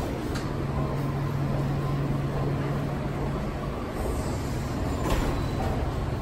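Downtown street traffic with a city bus running close by. A steady low hum stops a little past halfway, and a brief hiss comes about five seconds in.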